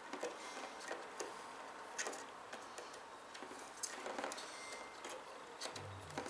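Scattered light clicks and taps of computer parts being handled, irregular and several seconds long, over a faint steady hiss.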